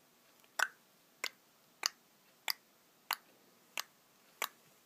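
Tongue clicks: a sharp click about every two-thirds of a second, seven in a steady rhythm.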